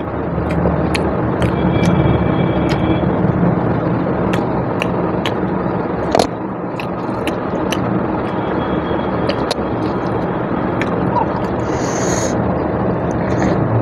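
A person chewing and eating with the mouth close to the microphone, making many short wet clicks and smacks. A steady background noise runs underneath.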